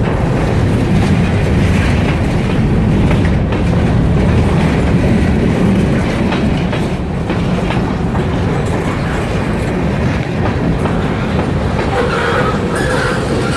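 Freight train rolling past at close range: a steady low rumble with wheels clattering over the rail joints.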